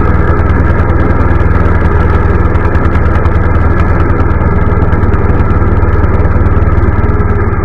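Two-stroke chainsaw engine idling steadily, chain not cutting.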